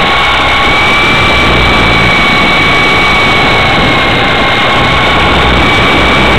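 Blade CX2 coaxial electric RC helicopter in flight, heard from a camera mounted on it: a steady high motor whine over the rush of the rotors, working hard under the camera's weight.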